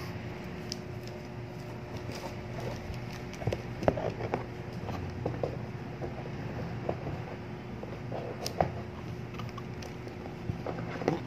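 Irregular light clicks and taps of hard plastic parts and packaging being handled while unpacking an airsoft pistol, over a faint steady hum.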